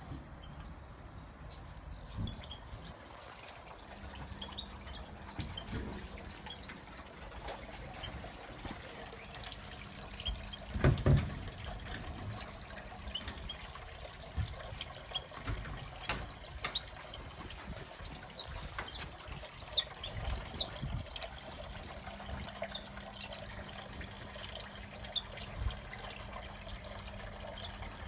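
Goldfinches and canaries twittering in quick clusters of short high chirps over a steady trickle of water from a garden birdbath fountain. A few knocks stand out, the loudest about eleven seconds in.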